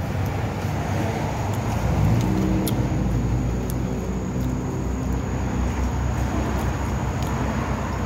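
A motor vehicle's engine over steady traffic rumble, speeding up about two seconds in, then running steadily and fading.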